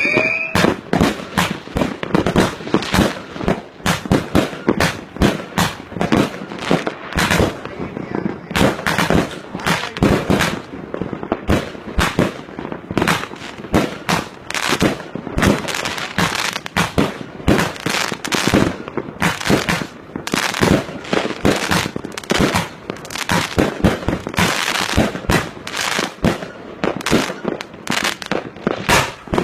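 Fireworks exploding in a continuous barrage: sharp bangs and crackles, several a second, overlapping without a pause.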